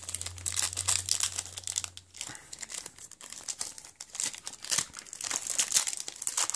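Foil trading-card pack wrapper crinkling and tearing as it is pulled open by hand, in two bouts with a short lull in the middle.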